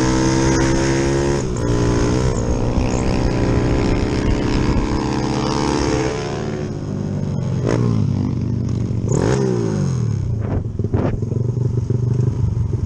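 Yamaha Jupiter MX four-stroke single-cylinder motorcycle engine, fitted with a 72 mm piston, revving hard under way with a few short breaks early on. About six seconds in the revs fall off, then come a few quick throttle blips with the pitch rising and dropping.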